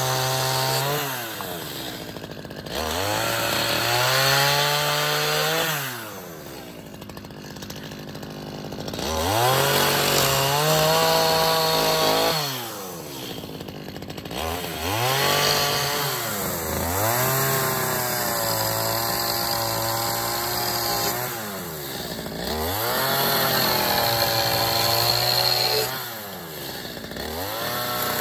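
Two-stroke gas chainsaw cutting through wooden boards: the engine revs up to full throttle for a few seconds at a time, then drops back to idle between cuts, several times over.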